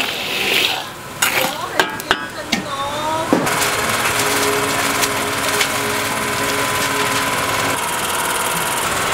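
A metal spatula scrapes and clicks through coarse salt in a wok for the first few seconds. Then a steady engine-like running noise with a low hum takes over; the hum drops out near the end while the noise continues.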